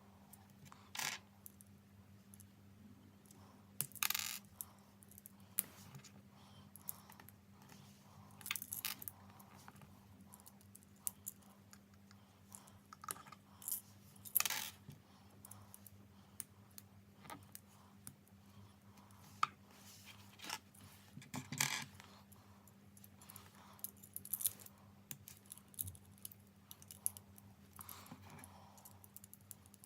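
Small plastic Lego pieces clicking and rattling as they are handled and snapped together, in scattered short clicks with a few louder rattling clusters, over a steady low hum.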